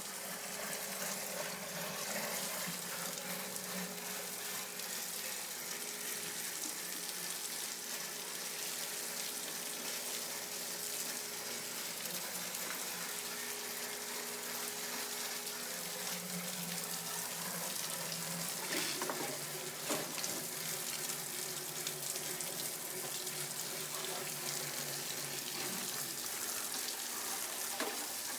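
Water running steadily, a constant hiss-like rush, with a couple of faint clicks about two-thirds of the way through.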